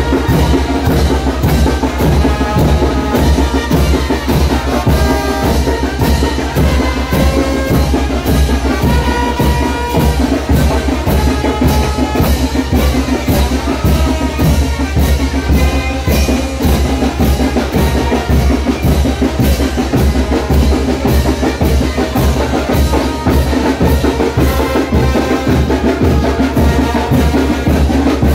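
Brass band with sousaphone and drums playing brinco del chinelo dance music: a steady, even drum beat under a brass melody with a heavy bass line.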